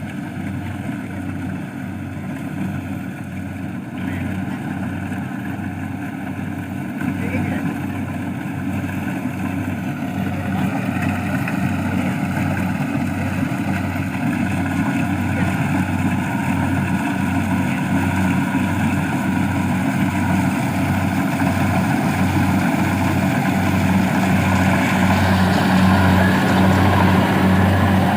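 A small engine runs steadily with a regular pulse, growing gradually louder.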